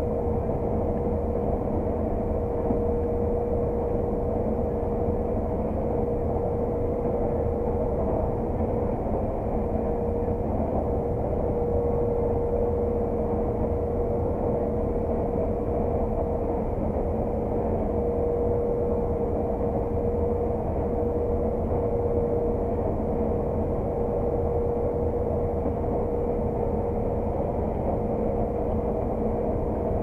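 Claas Lexion 600 TT combine harvester heard from inside its cab while combining oilseed rape: a steady drone of engine and threshing machinery. A constant whine sits over it, and nothing changes.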